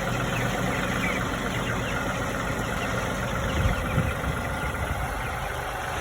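Vehicle engine running steadily at low revs, with chicks peeping faintly over it and a low thud about four seconds in.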